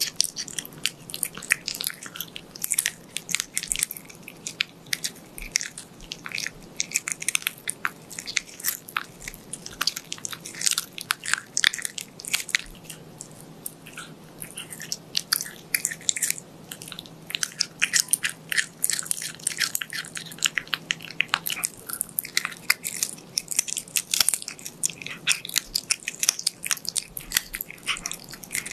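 A cat gnawing and chewing a raw chicken drumstick, a rapid, irregular run of crunching, clicking bites as its teeth work the meat on the bone.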